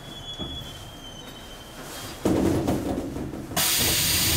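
Busan Metro Line 1 1000-series subway car coming to a stop at a station: a faint high whine and low running rumble, then about two seconds in a sudden louder low rush. Near the end a loud steady hiss of air sets in, just before the sliding doors open.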